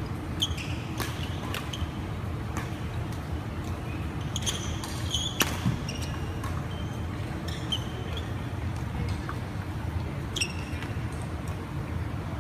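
A badminton rally on a wooden court: irregular sharp clicks of rackets striking the shuttlecock, with short high squeaks of shoes on the floor, over a steady low hum of the large hall.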